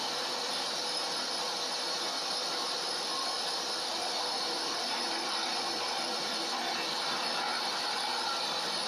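Multifunction chopper-grinder running steadily at speed while grinding corn cobs through its screen: a constant loud whirring, rattling hiss with no let-up.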